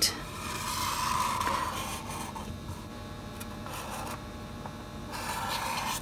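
Felt-tip permanent marker scratching along bare scrap wood as a template outline is traced, in continuous rubbing strokes. It is louder for the first two seconds and again near the end.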